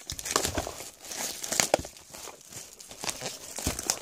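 Clear plastic shrink-wrap crinkling and tearing as it is pulled off a cardboard box of trading-card packs, in an irregular run of crackles with a few sharper snaps.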